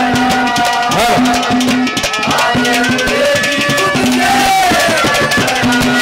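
Live Haryanvi ragni accompaniment: a dholak-style hand drum beating under held and sliding melody notes.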